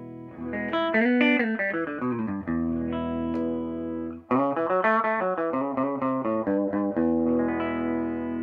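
Hollow-body electric guitar played through a Univox U-1226 tube guitar amp: two quick runs of single notes, each settling into a held chord that rings out.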